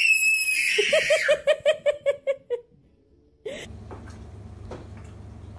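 A small child's high squeal breaks into a run of about ten quick, rhythmic giggles, roughly five a second. After a brief pause the sound changes to a steady low hum with a few faint soft knocks.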